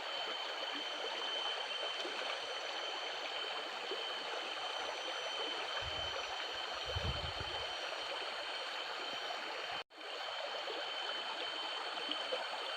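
Steady rush of flowing water, with a thin, steady high tone over it, a short low rumble midway, and a momentary drop to silence about ten seconds in.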